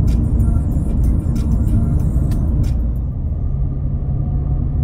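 Car driving on a road, heard from inside the cabin: a steady low rumble of engine and tyres, with scattered faint ticks during the first few seconds.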